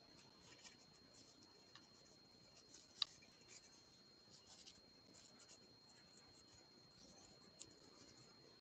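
Faint scratchy rustling of a crochet hook working yarn, with one sharp click about three seconds in, over a steady faint high-pitched whine.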